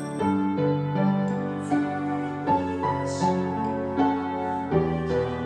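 Upright piano being played: a slow piece of changing notes over lower held notes.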